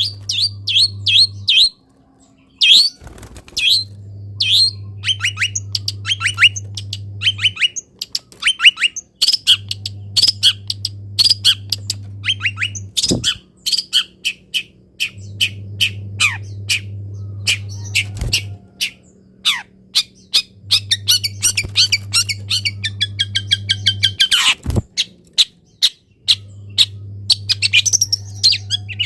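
Long-tailed shrike singing a fast, varied string of sharp chirps and harsh calls, with a quick run of repeated notes in the second half. A low hum switches on for a few seconds and off again, over and over, underneath.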